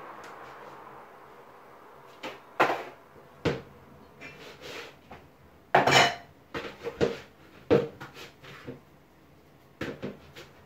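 Kitchen clatter: bowls and dishes handled and knocked on the worktop, a run of irregular sharp knocks that starts about two seconds in and is loudest around six seconds.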